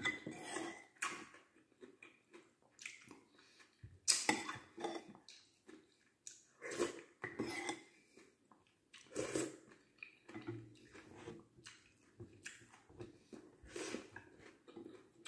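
Close-up eating sounds: chewing and mouth smacks, with irregular sharp clinks of a spoon against a ceramic soup bowl and plate.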